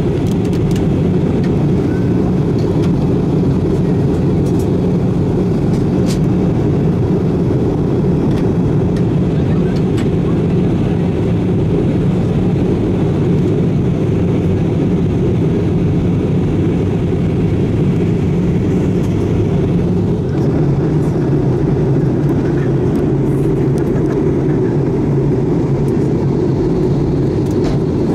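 Steady cabin noise of an Airbus A320-214 airliner in descent: a loud low rumble of airflow and engines, its low hum shifting slightly lower about twenty seconds in.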